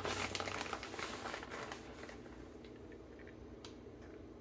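A plastic bag of shredded mozzarella rustles and crinkles as the cheese is shaken out and sprinkled by hand. The rustling dies away after about a second and a half, leaving only a faint tick or two.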